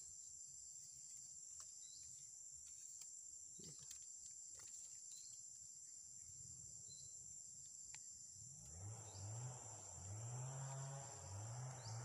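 Steady high-pitched drone of forest insects, with a few faint clicks about a third of the way in. Soft background music with a low, stepping melody comes in about two-thirds of the way through.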